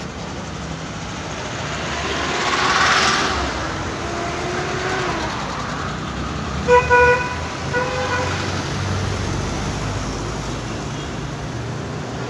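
Steady street-traffic rumble with a vehicle passing close by about three seconds in, then a car horn honking in a few short blasts about seven seconds in.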